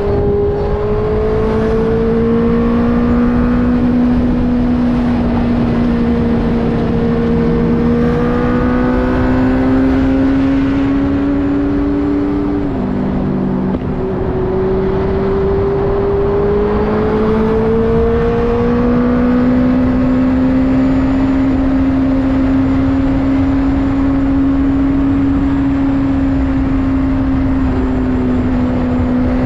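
Benelli TNT600's inline-four engine running under way at steady, moderately high revs, its note slowly rising and falling. The pitch drops sharply about halfway through, then climbs again over a few seconds. A constant rushing noise lies underneath.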